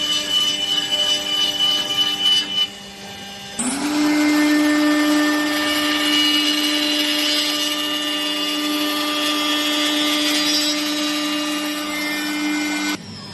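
5-axis CNC chair-leg shaper cutting wood with a high-speed spindle: a steady machine whine over a rough cutting noise. About three and a half seconds in, after a brief quieter gap, the spindle spins up and holds a steady pitch while it cuts, then stops abruptly just before the end.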